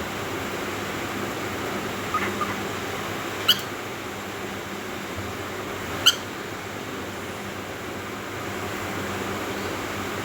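Grey cockatiel giving two short, sharp chirps about two and a half seconds apart, after a couple of softer chirps, over a steady background hiss.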